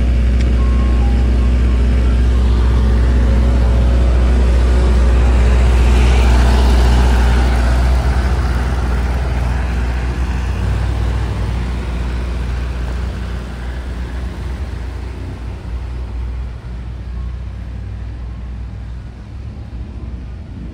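Soft-serve ice cream truck's engine running close by with a deep steady hum, swelling about six seconds in as the truck pulls off, then fading steadily as it drives away down the street.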